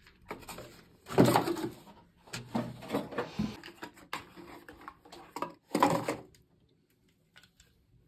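Packaging rustling and parts knocking as vacuum-cleaner accessories are taken out of their box: three bursts of handling noise with small clicks, the loudest about a second in.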